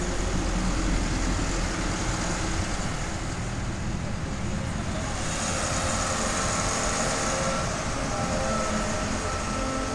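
Farm tractor towing a tractor-pulling weight-transfer sled past at close range: the diesel engine running steadily under the rumble of the heavy sled rolling over the muddy ground. About halfway through a faint steady whine and a high hiss join in as the sled draws level.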